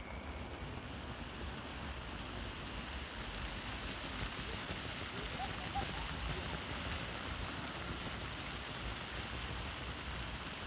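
Jets of a ground-level pop-up fountain spraying up and splashing back onto wet stone paving, a steady patter of falling water.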